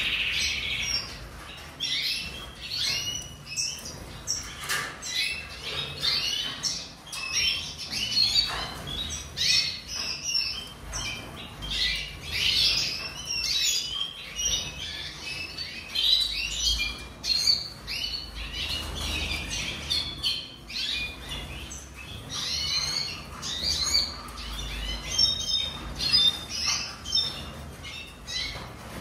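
Red siskin singing in a long, rapid twittering song of quick chirps and buzzy notes, with brief pauses between phrases.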